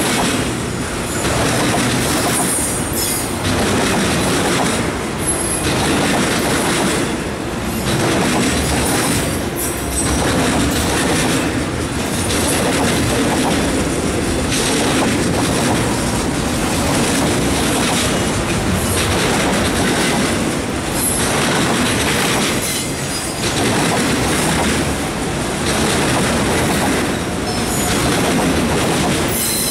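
Freight train of enclosed autorack cars rolling past at speed, steel wheels clacking over the track in a loud, unbroken rumble that swells and dips about every two seconds as each car goes by, with occasional faint high wheel squeal.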